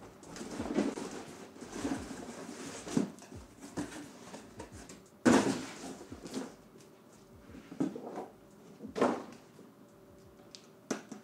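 Cardboard shipping boxes being handled: flaps rustling and cardboard scraping, with a sharp thump about five seconds in and another knock around nine seconds as a box is knocked or set down.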